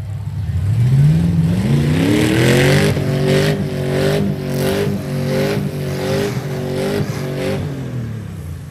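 Demolition-derby pickup truck's engine revving up hard. It is then held at high revs with a regular waver about twice a second and drops back near the end.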